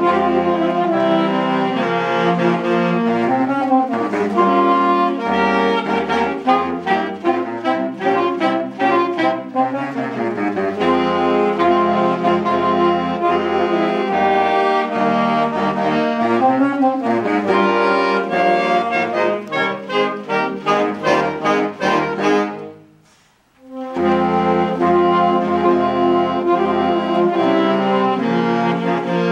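Saxophone choir of saxophones in several sizes playing in harmony: held chords with a passage of short, detached notes, breaking off for a moment of silence about two-thirds of the way through before coming back in together.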